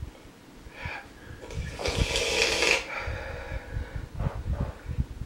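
A man's heavy breathing, with a long breathy exhale like a sigh about two seconds in, over low, irregular rumbling bumps.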